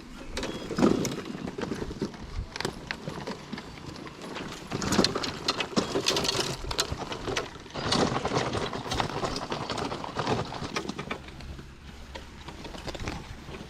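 Footsteps on rough ground with fishing gear clattering and knocking irregularly, as of a loaded cart being pulled along.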